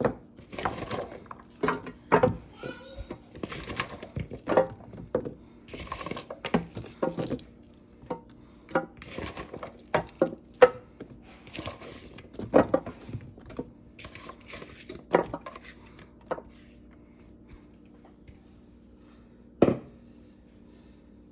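Kitchen handling sounds: dishes, a pot and utensils knocking and clinking as cut vegetables are moved into the pot, with frequent short knocks that thin out after about two-thirds of the way through, and one sharp knock near the end.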